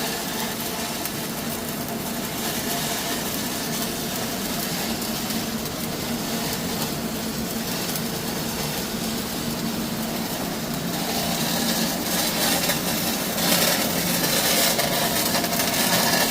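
Stick welding arc crackling steadily, with a steady machine hum underneath; the crackle grows louder from about eleven seconds in.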